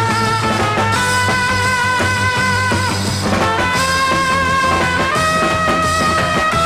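Background music: sustained melody notes that change pitch every second or two over a steady bass line.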